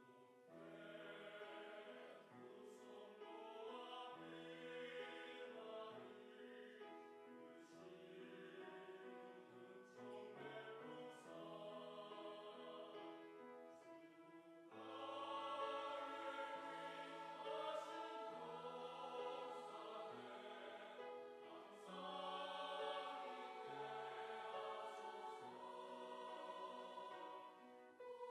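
Church choir singing a hymn in parts, with sustained chords over a moving bass line; the singing swells louder about halfway through and again a few seconds later.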